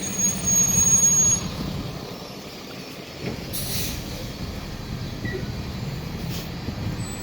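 Brakes of a heavy road vehicle squealing with a loud, high, steady tone for about a second and a half at the start, over the low running of its engine. A short hiss follows about three and a half seconds in.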